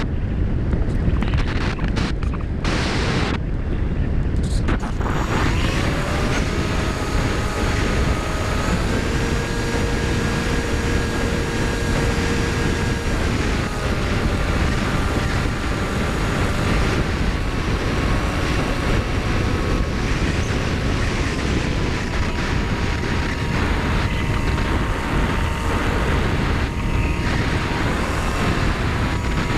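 Wind rushing over a GoPro riding on a Bixler 2 foam RC plane in flight, with the plane's electric motor and propeller whine coming in about five seconds in and shifting up and down in pitch several times as the throttle changes.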